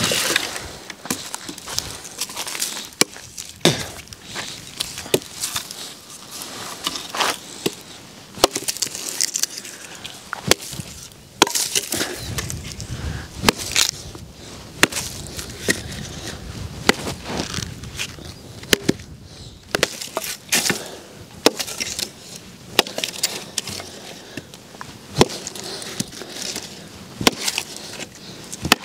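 Firewood being broken by hand: many sharp, irregular cracks and snaps of dry wood, with rustling of branches in between.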